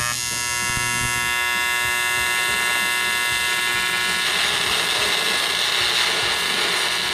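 AC TIG arc on aluminium from a YesWelder TIG 250P AC/DC, making a steady pitched buzz. About four seconds in it breaks up into a rougher hiss. The balance is set high at 65%, too much electrode-positive cleaning and not enough EN to hold a stable arc, so the arc runs erratic.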